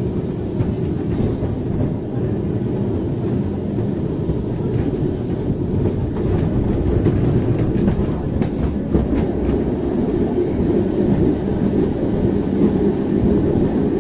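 A vehicle running: a steady low rumble with a few clicks and rattles in the middle.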